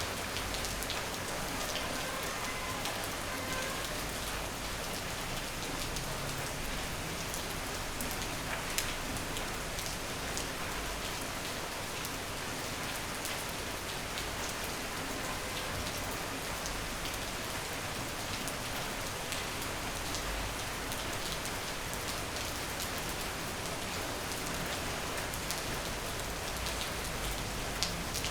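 Steady rain falling on a surface, an even hiss with many individual drops ticking through it and one sharper drop about nine seconds in.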